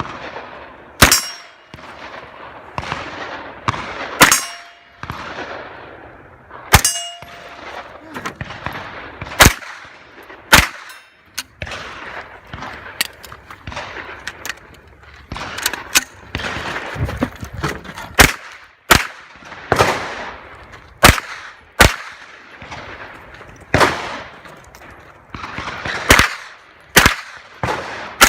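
Pistol-caliber carbine fired in an uneven string of about two dozen shots, some single, some in quick pairs. Most shots are followed by the clang of steel targets being hit and ringing out.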